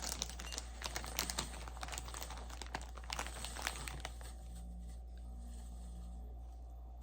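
Crinkly rustling and small clicks of something being handled by hand, dense for about the first four seconds, then dying away to quiet room tone with a low steady hum.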